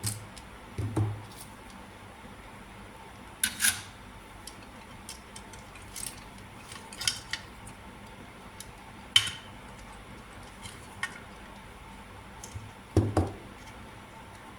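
Small hard tools and parts being handled on a workbench: scattered clicks and clinks every second or two, with a couple of duller knocks, one about a second in and a louder one near the end.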